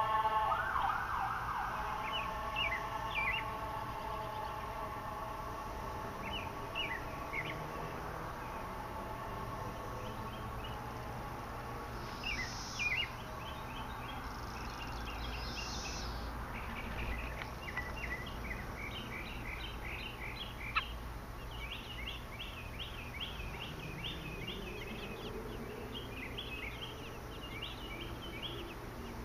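A siren wails and fades out over the first several seconds. Then come thin, high chirps from American robin hatchlings begging for food, in quick runs that grow denser from about halfway through.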